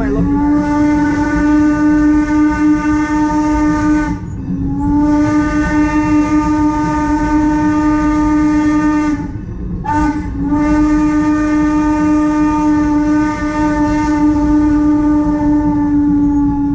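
Steam locomotive whistle blowing the grade-crossing signal: two long blasts, a short one, then a long one. The low rumble of the moving train runs underneath.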